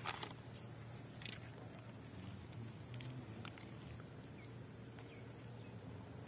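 Faint outdoor ambience: a few short, high bird chirps falling in pitch over a low steady hum, with a couple of light clicks in the first second or so.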